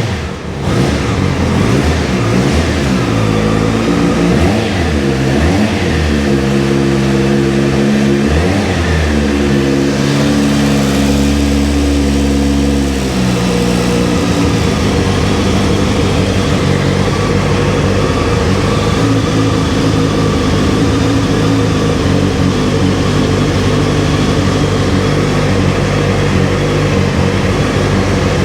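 A 2006 Honda CBF600's inline-four engine with its stock exhaust, running just after starting. It is blipped a few times, held at raised revs until about thirteen seconds in, then drops back to a steady idle.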